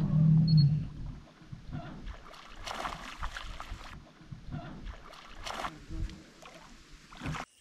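Hooked peacock bass thrashing at the surface beside the boat: irregular water splashes, strongest about three seconds in and again about five and a half seconds in, with low knocks on the boat. A steady low hum stops about a second in.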